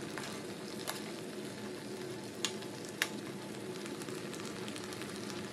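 Shrimp in tomato sauce simmering in a frying pan, the sauce bubbling and sizzling steadily, with three sharp pops in the first half.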